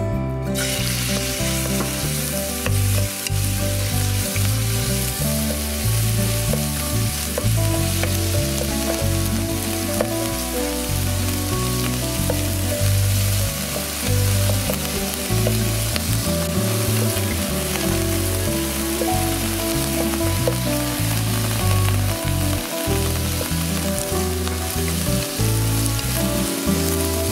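Diced chicken tenderloin stir-frying in sesame oil in a frying pan: a steady sizzle that starts about half a second in, with a wooden spatula stirring the pieces.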